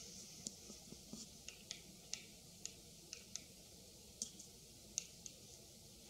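White-backed woodpecker pecking at a stripped patch of tree trunk: faint, irregular sharp taps, roughly three a second, as its bill chips into the wood.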